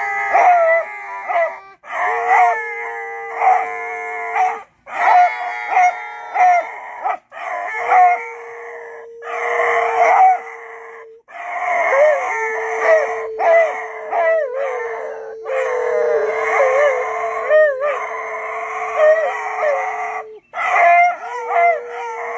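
A man and two beagles howling together in a long, loud chorus. A steady held note runs through it, breaking off and starting again every few seconds, while the beagles' howls and bays waver up and down over it.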